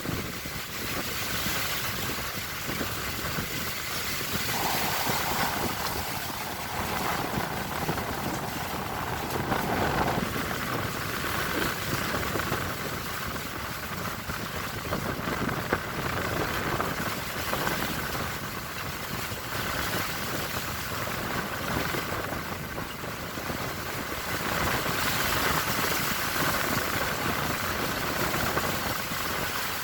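Strong sea wind and waves at sea in a storm, a steady rushing noise that swells and eases every few seconds.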